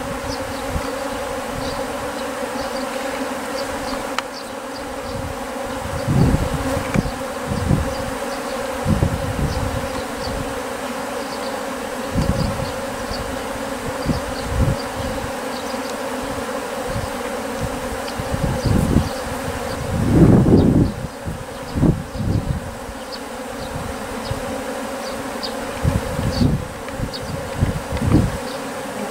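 A swarm of Japanese honeybees buzzing in flight around their lure, a dense steady hum with repeated louder low swells, the biggest about two-thirds of the way through.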